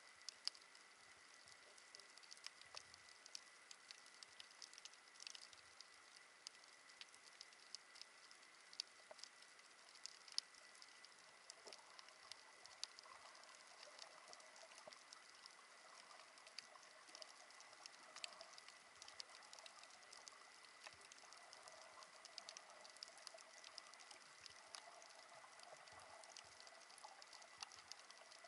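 Faint underwater crackle of a coral reef: many scattered sharp clicks of the kind snapping shrimp make, under a faint steady high tone.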